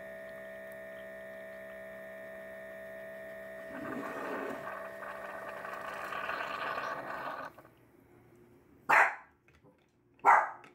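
Single-serve pod coffee maker running as it brews into a mug: a steady pump hum that grows louder and rougher about four seconds in, then cuts off suddenly halfway through. Near the end a dog barks twice, the loudest sounds here.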